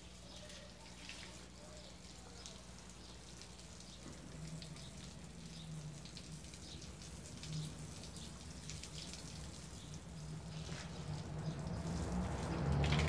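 Water from a garden hose spraying against a brick wall and splashing onto a wet concrete floor. At first it is a faint patter of drips and splashes, and it grows steadily louder toward the end.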